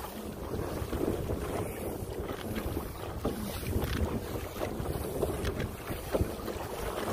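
Motorized kayak under way on open water, with heavy wind noise on the microphone.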